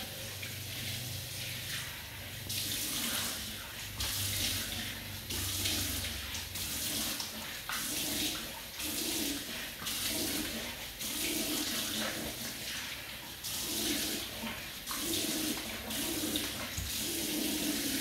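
Bathroom sink tap running while cupped hands scoop water and splash it onto a face, again and again at about one splash a second, rinsing off facial cleanser.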